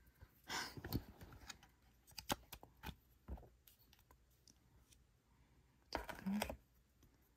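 Light plastic clicks and snaps with handling noise as a GoPro Hero 12 camera and its black plastic mounting frame are taken apart and fitted together. Scattered clicks come in the first few seconds, with a denser burst of handling about six seconds in.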